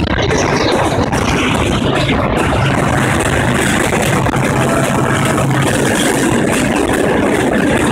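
Moving train running through a rock tunnel: a loud, steady rumble and rushing noise of the carriages, picked up by a microphone held out beside the carriage.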